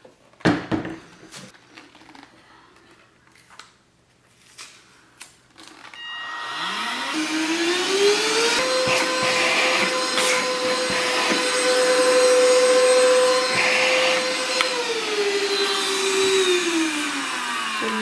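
Handling clicks and knocks at first, with one loud click about half a second in. About six seconds in, the AIRSEE cordless handheld vacuum's motor switches on, and its whine rises quickly in pitch to a steady run. Near the end the pitch drops in two steps.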